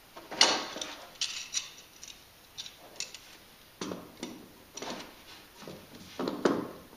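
Hand tools clinking and scraping at a bulkhead fitting on a plastic tank wall as it is worked by hand: a string of short, irregular clicks and rubs, loudest about half a second in and again near the end.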